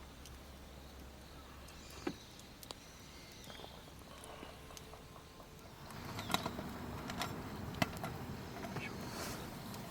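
Wood fire crackling in a fire pit, with scattered sharp pops that come thicker and louder from about six seconds in.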